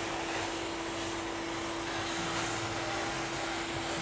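Gas cutting torch hissing steadily as it cuts through the steel of an artillery shell casing.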